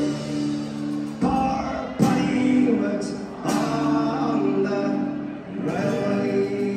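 Live folk-punk band with a string section playing a slow passage in a large hall: held chords that change every second or two, with singing.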